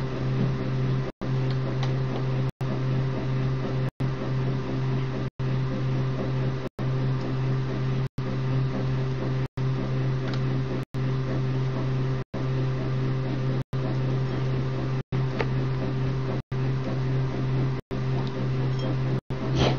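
Steady electrical humming from a running appliance. The sound cuts out to silence for a split second about every second and a half.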